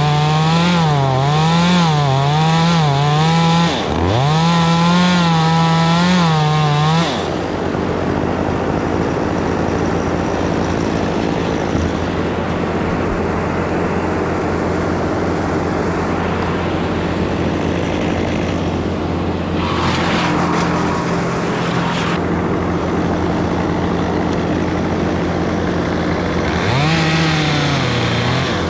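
Chainsaw cutting wood, its engine pitch wavering up and down under load for the first seven seconds. It then drops to a steadier, lower drone for most of the time before revving and wavering again near the end.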